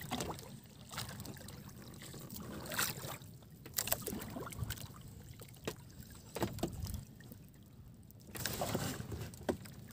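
Faint sea water washing against the hull of a small outrigger boat drifting without an engine, with scattered light knocks and clicks.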